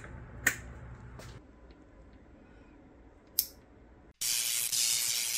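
A few sharp clicks a couple of seconds apart, then a loud hiss that lasts under two seconds near the end.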